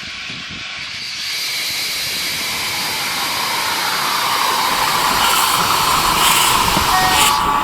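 Steam locomotive hissing, a steady rush of noise that grows louder over several seconds.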